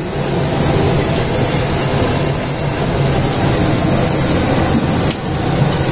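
Steady roar of a high-pressure gas burner turned up full under a large pot of boiling rice water, briefly dipping near the end.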